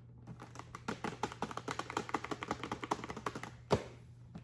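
A rapid, irregular run of light clicks and taps lasting about three seconds, then one sharper click near the end.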